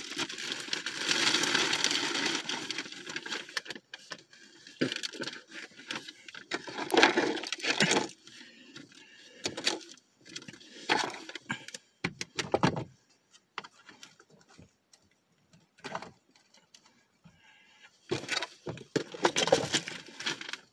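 Packaging crinkling and rustling as it is gathered up by hand, steady for the first few seconds. Then come scattered short rustles and small knocks with quiet gaps between them.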